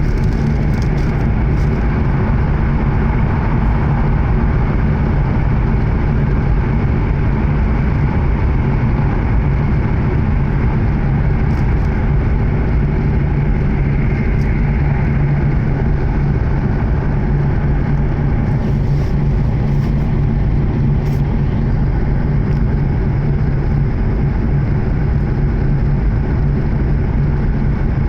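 Steady interior running noise of an E7-series Shinkansen at speed, heard inside the passenger car: an even rumble with a low hum. A few faint ticks come through about two thirds of the way in.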